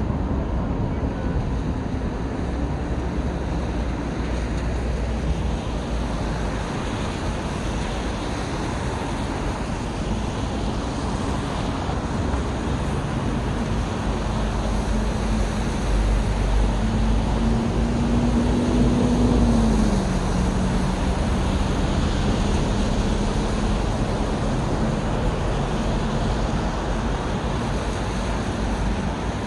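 Steady city road traffic. One vehicle's engine hum stands out above the rest, growing louder and then dropping in pitch about two-thirds of the way in as it passes.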